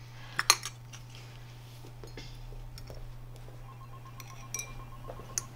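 China cups and saucers clinking as they are set down on a table: two sharp clinks about half a second in, then a few lighter clinks near the end.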